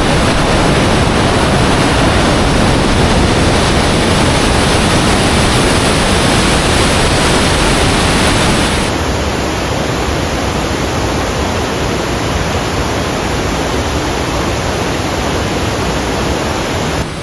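Mekong river waterfall and rapids rushing powerfully, a loud, steady, dense noise of churning water. About nine seconds in it drops a little in level and sounds slightly duller.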